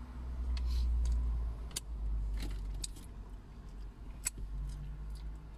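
Low rumble of a vehicle going by outside, heard from inside a parked car, strongest at first and fading after about a second and a half, with a few light clicks and rustles.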